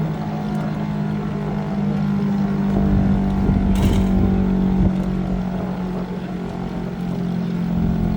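Chrysler air raid siren running on its Hemi engine: a loud, steady low drone that holds its pitch without rising or falling. A brief noisy click comes about four seconds in.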